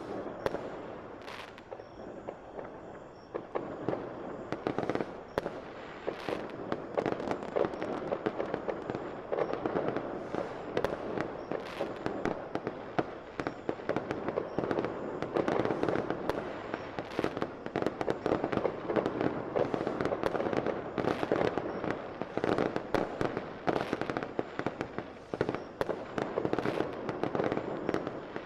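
Fireworks going off in a dense, unbroken barrage of crackles and sharp pops, a little thinner for the first few seconds and thicker from about ten seconds in.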